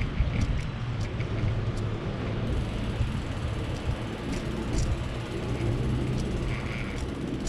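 A motor vehicle engine running steadily: a low hum under outdoor noise, with a few faint clicks.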